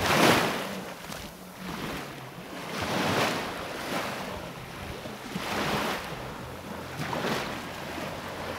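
Small waves breaking and washing up close by in the shallows: four washes a few seconds apart, the first the loudest.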